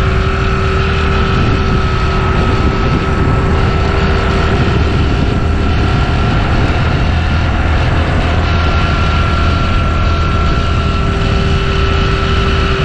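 TVS Jupiter 125 scooter's single-cylinder engine running steadily under way: a constant low rumble with a steady whine on top.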